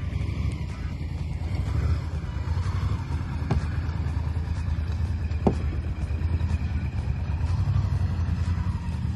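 Honda XL1000 Varadero's V-twin engine running steadily with a low rumble while the bike is ridden, with two short sharp clicks about two seconds apart in the middle.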